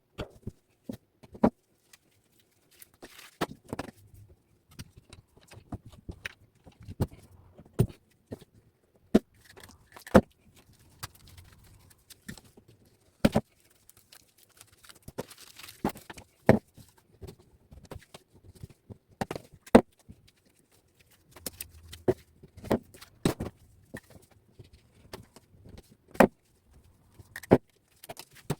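Copper wires being handled and fed through a screwed-down wire-stripping machine: irregular sharp clicks, knocks and metallic clinks at uneven intervals, some much louder than others.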